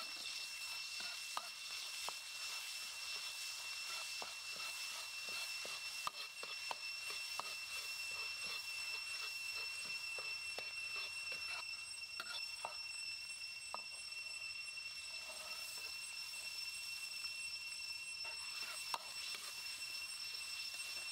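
A steel ladle stirs curry paste frying in oil in a steel wok: a steady sizzle with frequent short scrapes and taps of metal on metal.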